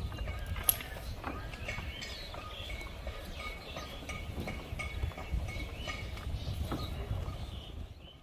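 Outdoor ambience: a low rumble with scattered clicks and faint, short, repeated high chirping calls, fading out near the end.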